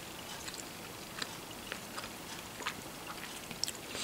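Faint mouth sounds: a few soft, scattered clicks over a low steady hiss, while a mouthful of soup is eaten.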